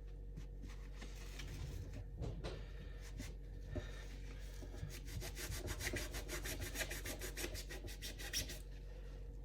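Nearly dry sponge loaded with Bar Keepers Friend powder scrubbing a steel knife blade: a gritty rubbing that turns into quick back-and-forth strokes, about six a second, from about halfway through.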